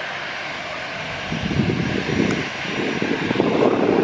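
Jet engines of an Airbus A320 taxiing toward the listener at low power: a steady rushing hum that grows louder from about a second in.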